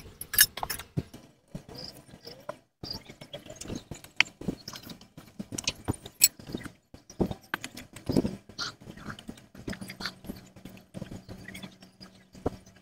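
A sheet of paper being handled, rustled and marked with a pencil: irregular crinkles, scratches and small taps.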